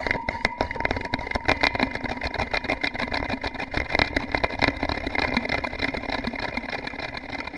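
A fast, steady rattle from a device on a DIY piezo contact-mic noise box, picked up through the box and drowned in delay and reverb, so that it sounds like a machine idling.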